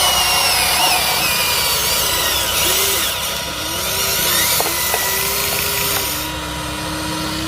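Small electric motors of a radio-controlled excavator and dump truck running, their whine rising and falling in pitch in short arcs as the controls are worked.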